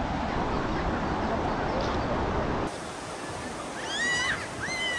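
River water flowing: a steady rushing noise that drops a little in level about two and a half seconds in. Near the end come two short high calls that rise and fall.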